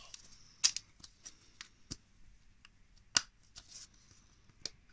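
Hard plastic toy ball shell being handled and fitted together, giving a run of scattered clicks and taps, two of them sharper: one just under a second in and one about three seconds in.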